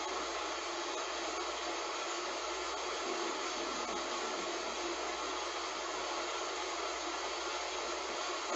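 Heavy rain falling, a steady even hiss with no thunder.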